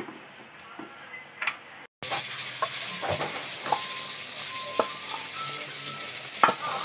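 Wooden spatula stirring and scraping stir-fried noodles in a hot frying pan, with clicks and knocks against the pan over a steady sizzle. The sound drops out for an instant about two seconds in, and the sizzle is stronger after that.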